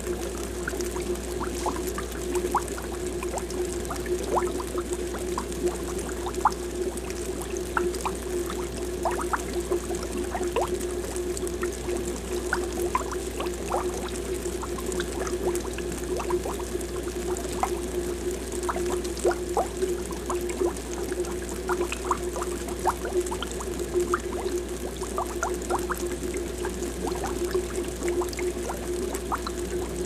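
Aquarium air bubbles rising and breaking at the water surface: a dense, irregular run of small watery plinks and gurgles, over a steady hum.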